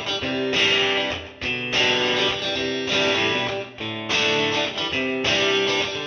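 Instrumental background music led by strummed guitar chords, each chord ringing on before the next is struck.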